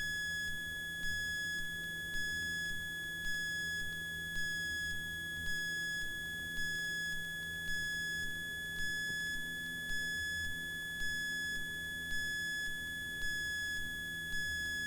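A steady, high, pure electronic tone, with a fainter higher beep pulsing about twice a second over it. It cuts off suddenly.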